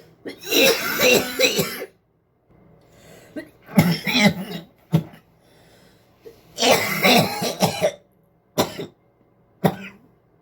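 A person coughing in three long fits of several coughs run together, with short single coughs between them.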